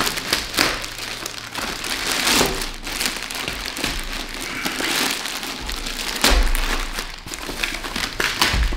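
Clear plastic bag and bubble-wrap packaging crinkling and rustling as it is worked off a resin 3D printer, with dull low thumps about six seconds in and again near the end.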